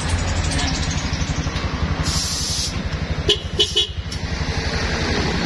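Engine idling with a fast, even low pulse. A brief hiss comes about two seconds in, then three short horn toots just past the middle.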